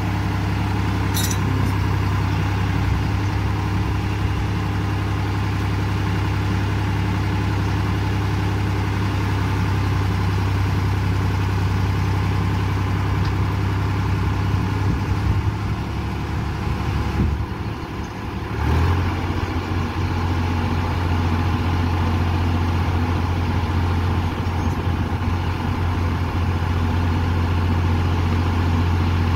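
Tractor diesel engine running steadily while driving the hydraulic crane that stands a concrete pole upright. About two-thirds of the way through the engine note dips briefly, then settles back at a slightly lower pitch.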